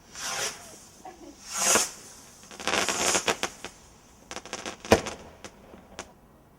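Fireworks hissing and crackling, with a run of sharp pops and cracks and one loud bang about five seconds in.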